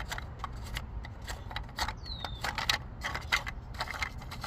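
Irregular clicking and light rattling as the hubcap's fasteners are unscrewed from the wheel, with a brief falling squeak about two seconds in.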